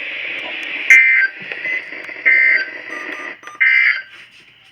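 Three short Emergency Alert System data bursts, harsh electronic beeps about a second apart: the end-of-message code that closes an EAS alert.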